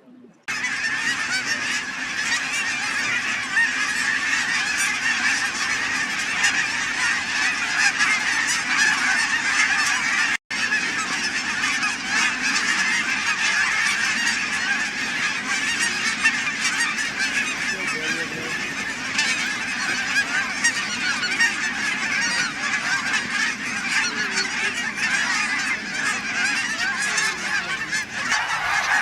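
A large flock of geese honking in a dense, continuous chorus, with a momentary break about ten seconds in.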